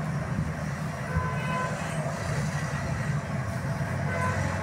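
Steady low engine rumble of motor vehicles, with a few short, faint high tones over it.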